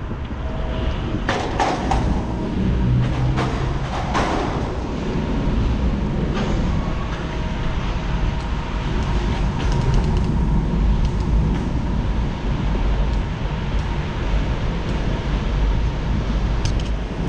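A bicycle ridden on concrete: a steady low rumble of tyres and wind on the microphone, with a few sharp rattling knocks from the bike between about one and four seconds in.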